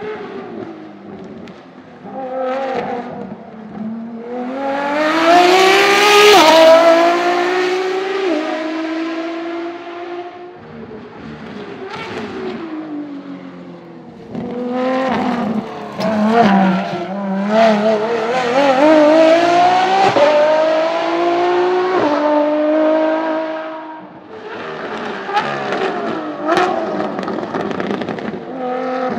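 Ferrari FXX K test mule's V12 under hard acceleration: the revs climb and drop sharply at each quick upshift, fade as the car pulls away, then climb again through another run of upshifts before rising and falling once more near the end.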